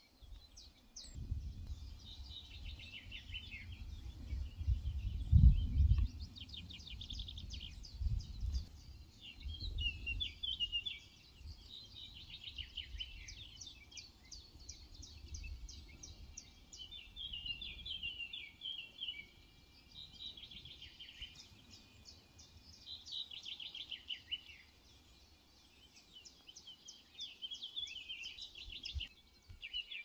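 Small songbirds singing steadily, repeated phrases of high chirps and fast trills. A gusty low rumble runs under the song through the first half, loudest about five seconds in.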